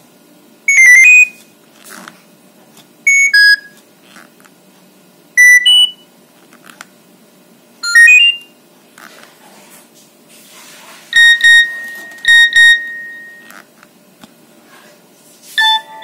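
Nokia 3230 mobile phone playing its built-in SMS message alert tones one after another as the tone list is scrolled: four short jingles of a few quick notes each, then two beeps and a held tone about eleven seconds in.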